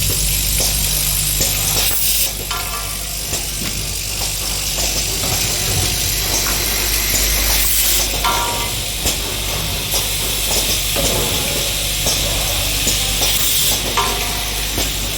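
Automatic blade-nut screwing and tightening machine running through its cycle: a steady low hum and hiss, with a short hissing burst and a brief whirr about every five and a half seconds, three times.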